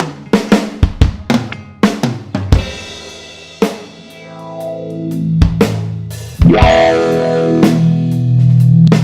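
Electric guitar through a SubDecay Vocawah vowel-shift filter pedal and Marshall JCM 900 amp, played with a drum kit. Quick drum strikes open, then a held guitar note swells with a sweeping vowel-like filter, and about six seconds in a loud chord rings out under steady drum hits.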